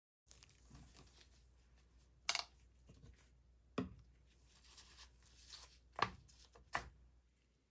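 Quiet handling noises at a leatherworking bench, with four sharp taps or knocks, the first about two seconds in and the last near the end, and soft rustling between them.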